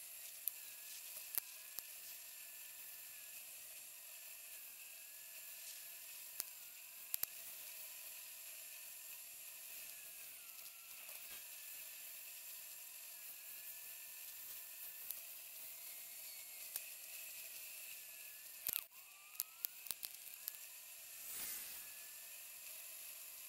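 Faint steady hiss with a thin, wavering high whine, as heard through a camera riding on a bicycle along a paved trail. Scattered sharp clicks and knocks from bumps come through it, with a cluster of them near the end and then a brief whoosh.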